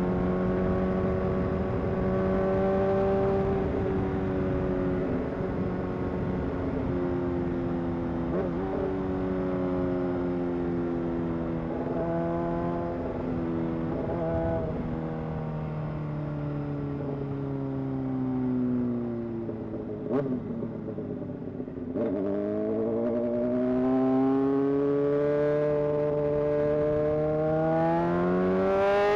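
Honda CBR 600 inline-four motorcycle engine running under way, its pitch sinking slowly as the bike slows, dipping briefly about two-thirds through, then rising steadily as it accelerates again near the end.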